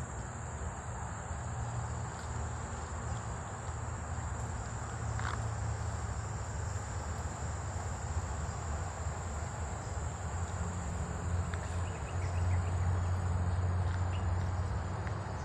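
Insects trilling in a steady, unbroken high-pitched drone, with a low rumble underneath that grows stronger near the end.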